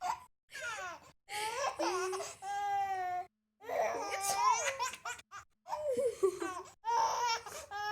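Laughter in several bursts with short pauses between, a baby's laughter mixed with adults laughing at it, including a drawn-out high-pitched laughing note about two and a half seconds in.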